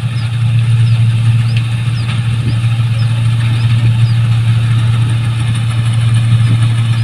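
New Holland 1545 combine harvester's engine running at a steady, unchanging speed, a loud, even low drone.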